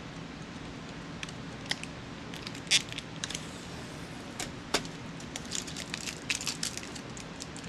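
Scattered small clicks and crackles of shipping tape being picked at with fingernails and peeled off the plastic casing of a Silhouette Cameo 4 cutting machine, busiest about five to seven seconds in.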